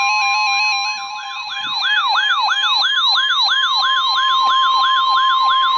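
Weather radio receivers sounding their alarms together for a flood warning. A steady tone near 1 kHz, the NOAA Weather Radio warning alarm tone, plays under a stepping two-tone warble and a siren that sweeps about two and a half times a second. The siren grows louder about two seconds in.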